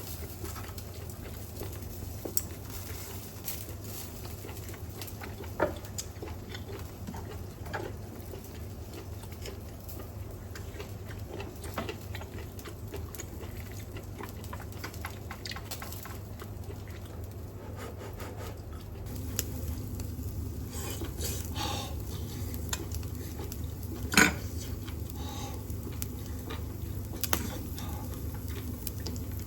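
Scattered clinks and taps of utensils and tableware over a steady low hum from the kitchen extractor fan; one sharper knock about three quarters of the way through is the loudest.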